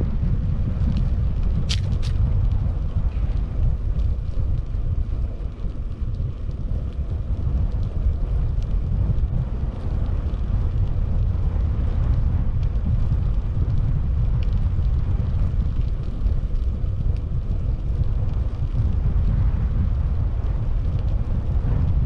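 Wind buffeting the microphone of a camera on a moving bicycle: a steady low rumble. A couple of brief sharp ticks come about two seconds in.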